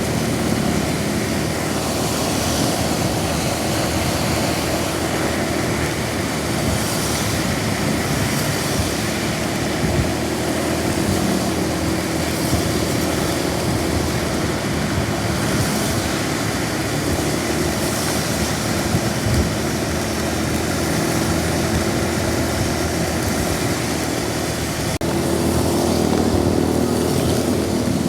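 Motor vehicle engine running steadily under a constant hiss of heavy rain and road noise. About three seconds before the end the sound steps up louder, with a stronger engine drone.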